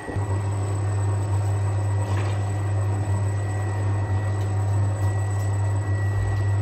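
Commercial bowl-type dough mixer switching on and running, its electric motor giving a steady low hum as it works the bread dough.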